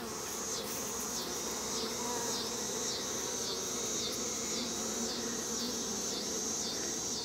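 Honeybees buzzing as a crowd on a hive frame held close to the microphone, a steady hum. Above it a high hiss swells and dips about every two-thirds of a second.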